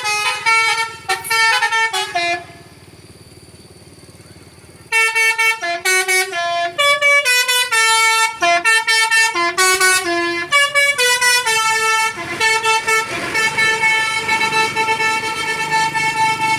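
Telolet multi-tone musical vehicle horn playing a quick tune of short stepped notes. It breaks off for about two and a half seconds a couple of seconds in, then resumes and ends on a long held chord with a low drone underneath.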